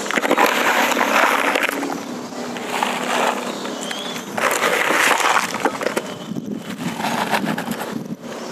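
Gritty bonsai soil mix with red brick chips poured from a plastic scoop into a pot. It is a crunchy, rattling pour that comes in about four bursts with short pauses between them.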